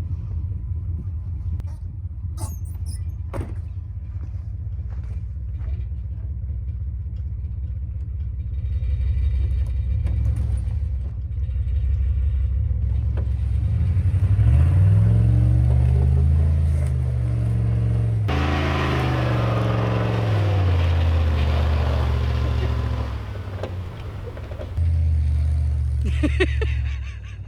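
2000 Dodge Ram 1500 pickup's engine floored under heavy load while towing a chicken coop through deep snow. The revs climb sharply about halfway in, drop briefly and climb again, then fall away near the end before picking up once more. A noisy hiss rides over the loudest stretch.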